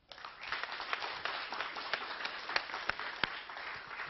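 Audience applauding: many hands clapping together, starting right away and easing off slightly toward the end.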